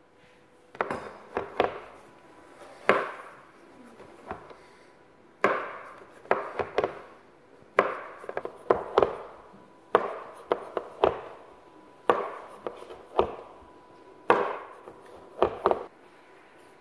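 Large kitchen knife chopping through rolled phyllo baklava rolls and knocking on the worktop: sharp knocks in quick groups of two or three, repeating every second or two.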